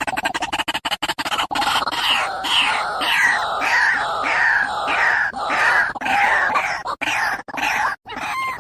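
White-breasted waterhen calling: a fast run of stuttering notes that turns into loud, repeated call notes, about three a second, which break into separate notes with gaps near the end.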